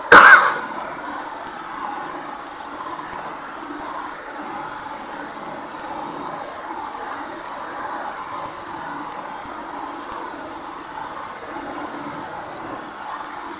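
Steady background noise picked up by a room microphone, with one loud, sharp burst just after the start.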